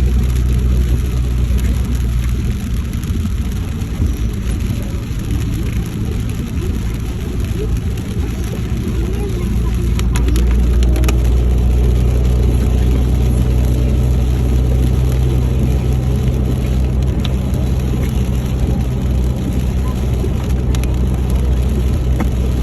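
A vehicle's engine and road noise while driving: a steady low drone under a continuous rush, with a few faint clicks about ten seconds in.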